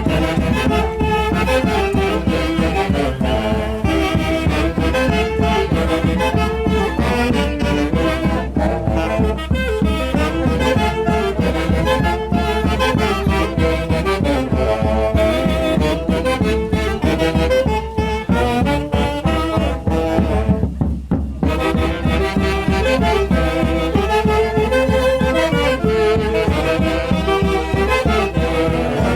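Band music for the Peruvian highland Santiago festival: horns and saxophones play a melody over a steady beat, thinning out briefly about twenty seconds in.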